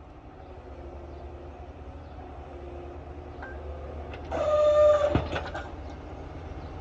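Excavator engine running steadily while it works, with scattered clicks and knocks. About four seconds in, a loud pitched screech lasts under a second and ends in a sharp knock.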